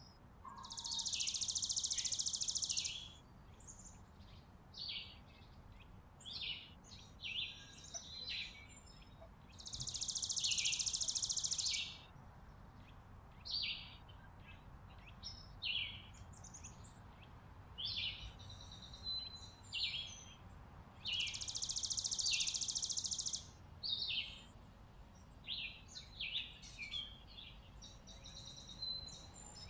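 Small songbirds calling at a seed pile: many short, high chirps, broken three times by a loud, rapid, high trill lasting about two seconds, roughly ten seconds apart.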